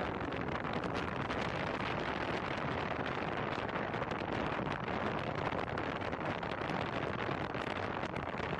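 Steady wind buffeting the microphone of a camera on a moving car, over the car's road noise.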